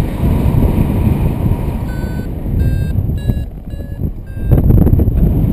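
A paragliding variometer beeps a quick run of short tones, about two to three a second, its pitch shifting up and down from beep to beep, which signals that the glider is climbing. Heavy wind rushes over the microphone throughout.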